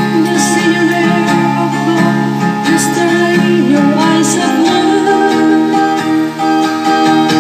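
A woman singing without clear words into a handheld microphone over backing music with acoustic guitar. Her voice wavers through a run of quick notes, then settles into long held notes in the second half.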